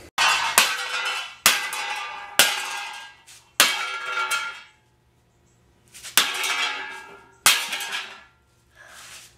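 Mallet striking an object laid on a wooden log stump, about seven blows roughly a second apart with a pause midway. Each blow is sharp and leaves a ringing clang that fades before the next.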